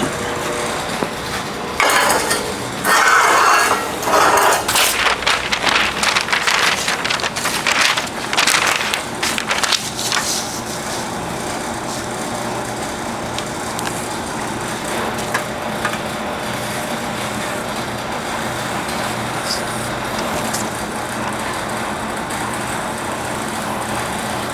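Metal clanking and clattering as a wire-form buck and sheet-metal parts are handled and set down, most of it in the first ten seconds. After that there is a steady background hum.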